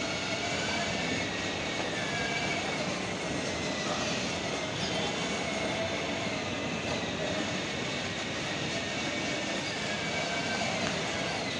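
Battery-powered ride-on toy car driving along, its electric motors and gearboxes giving a steady whine that shifts slightly in pitch as it speeds up and slows, over a constant rolling noise.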